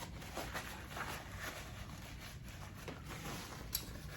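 Scattered light taps and clicks of painting supplies being handled on a work surface, with one sharper click near the end.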